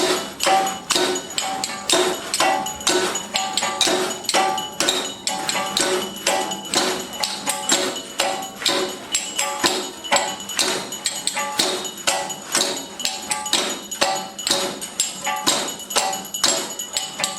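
Fast rhythmic percussion: sharp strikes several times a second, keeping an even beat, on struck objects that ring briefly at a few fixed pitches.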